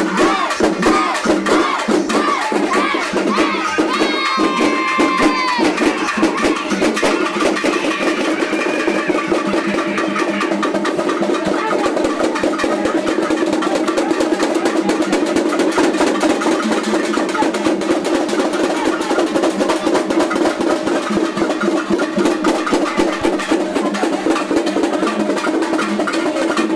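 Festival drums played in a fast, continuous rhythm of sharp strokes, over the voices of a packed crowd. About four seconds in, a brief high pitched call rises above the drumming.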